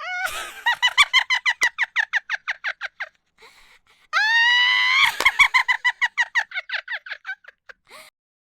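A high-pitched cackling laugh sound effect in two bouts: each starts with a short held squeal and breaks into rapid ha-ha pulses that trail off, the second bout beginning about four seconds in.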